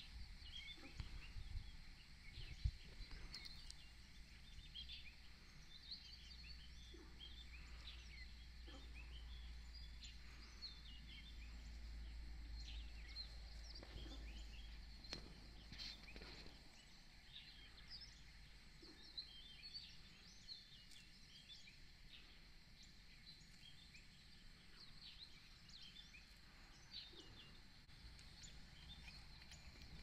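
Faint chirping of several small birds, many short irregular calls throughout, over a low background rumble.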